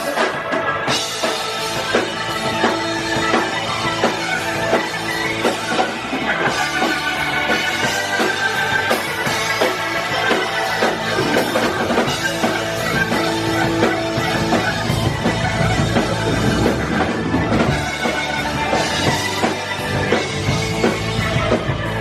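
Live rock band playing an instrumental passage: drum kit and electric guitars, loud and continuous.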